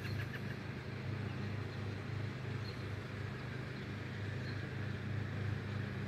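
Steady low mechanical hum, like a motor or engine running without change, under a faint hiss of outdoor background noise.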